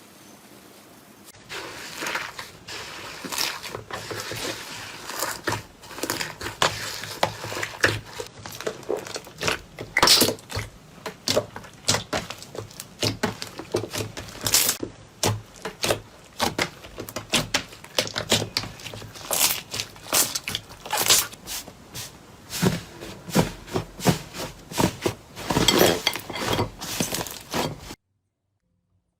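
Slime being squeezed and poked by hand, giving a dense run of sharp crackling pops and clicks. The sound stops abruptly near the end.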